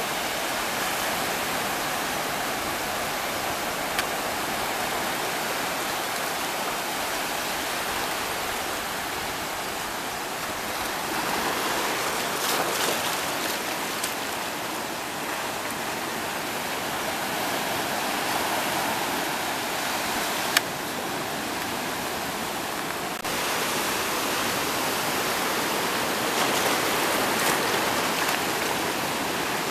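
Ocean surf breaking on a rocky shore: a steady rush of waves that swells and eases every several seconds, with a sharp click about two-thirds of the way in.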